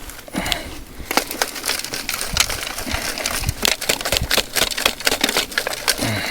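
Crunching and crackling of soil and debris being worked by hand while a trap set is covered and blended in: a rapid, irregular run of small clicks and crunches.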